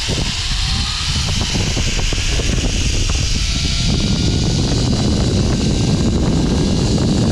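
Zip line trolley running fast down a steel cable: a steady whir with a faint rising whine as it gains speed, under heavy wind buffeting on the camera microphone. It grows louder as the ride speeds up.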